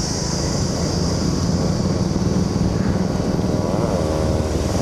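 Motor vehicle engines running, a loud steady rumble.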